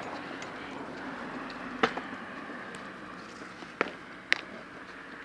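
Stunt scooter's small wheels rolling over a concrete skatepark surface with a steady rumble. Several sharp clacks cut through it: two close together about two seconds in, and two more near the end.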